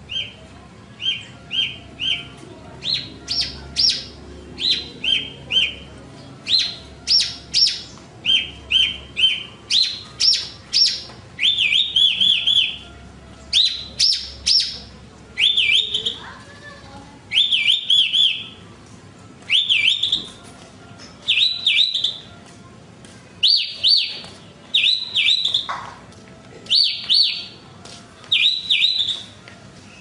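Branjangan (Javan bush lark) singing: short, high chirps in quick groups of three or four, repeated over and over. About a third of the way in, the notes turn into longer hooked, rising whistles.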